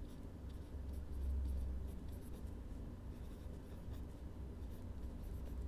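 Pen writing in a paper notebook: soft scratching strokes, close-miked over a low rumble.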